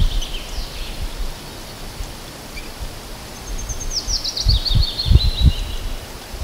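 Songbird singing: a short falling phrase of high notes at the start, then a quick descending trill of high notes about three and a half seconds in. A few low bumps on the microphone around five seconds in.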